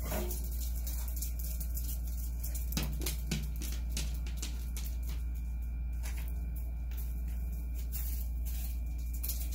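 Dogs on a patio: two short, low woofs from a dog about three seconds in, over a steady low hum and scattered light clicks.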